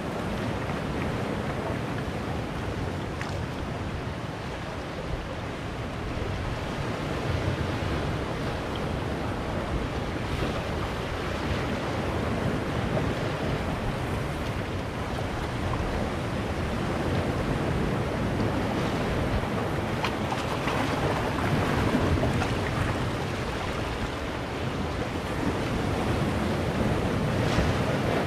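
Sea surf washing in and breaking among large boulders on a rocky shore: a continuous rush of water that swells louder now and then as waves come in, with wind buffeting the microphone.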